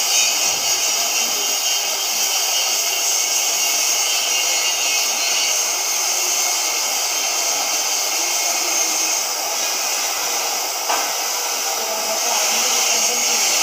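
CNC oxy-fuel cutting torch burning through thick steel plate for an 80 mm flange: a steady hiss from the cutting-oxygen jet. There is one short click about eleven seconds in.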